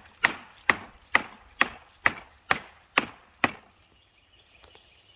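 Hand-forged fixed-blade survival knife chopping into the dry, weathered wood of an old cable spool: eight hard strikes at about two a second, stopping about three and a half seconds in.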